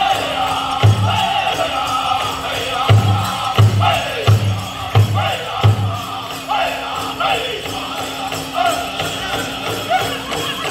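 Powwow drum group singing a chicken dance song, with the loud bass strokes of the big drum: one about a second in, then five heavy beats in a row roughly 0.7 s apart. The dancers' bells jingle steadily over it.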